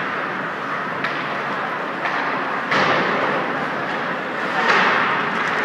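Ice hockey game ambience in an indoor rink: a steady wash of arena noise broken by a few sharp knocks, about one, three and five seconds in.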